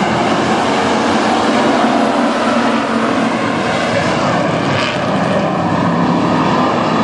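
A pack of WISSOTA Street Stock race cars with V8 engines running together at racing speed on a dirt oval, loud and steady throughout.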